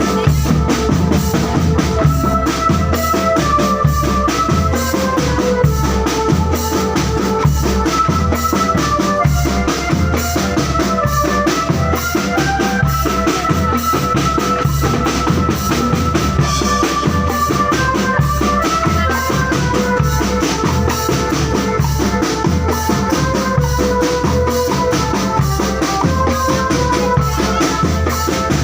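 Marching drum band playing: a steady beat of bass drums and snares with rimshots, under a melody of held, stepping notes.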